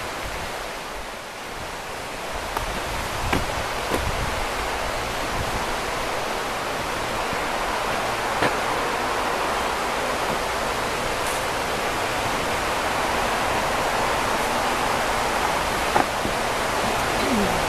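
A river's water rushing steadily, slowly growing louder, with a few faint clicks.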